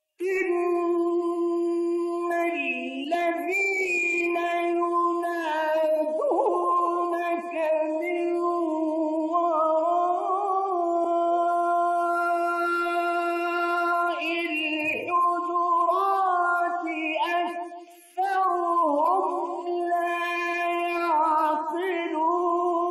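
A man chanting the Quran in the slow, melodic mujawwad style, holding long ornamented notes with his hands cupped to his ears. His voice breaks off briefly about eighteen seconds in, then goes on.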